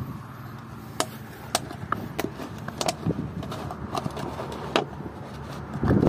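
A string of sharp, irregular clicks and crackles, about seven in all, from walking over dry stony ground with a plastic bottle in hand.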